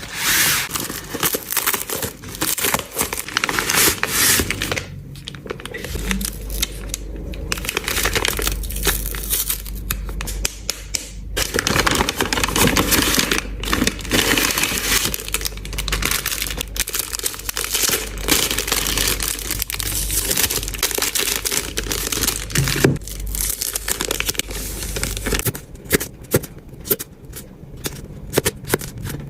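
Plastic packaging crinkling and tearing as trading cards are unwrapped by hand, in dense spells of rustling broken by brief pauses about 5 and 11 seconds in. A low steady hum lies underneath for much of it.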